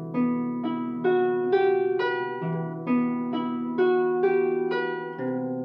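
Harp being plucked by hand: an unhurried melody over broken chords, about two notes a second, each note ringing on into the next over low bass notes.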